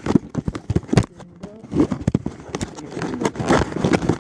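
Hands opening a cardboard product box and its packaging: an irregular run of knocks, rustles and scrapes.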